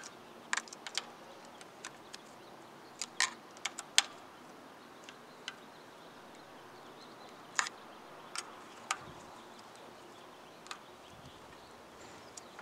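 Allen key turning in the handlebar stem's faceplate screws as they are tightened down: a dozen or so sharp metal clicks at uneven intervals.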